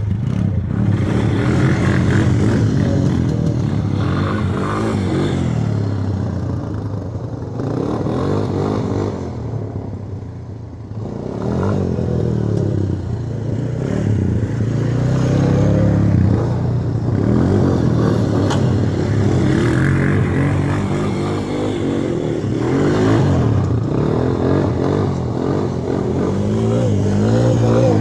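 Single-cylinder ATV engine being ridden, revving up and easing off again and again, its pitch rising and falling.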